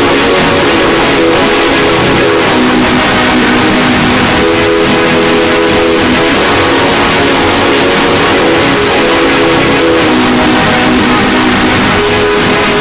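Very loud, heavily distorted electronic sound: a wall of harsh noise with a few held tones underneath that shift to new pitches every couple of seconds.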